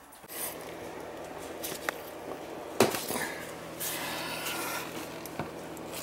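Clinks, knocks and rustling of small metal tools and parts being handled, with one sharp click about three seconds in.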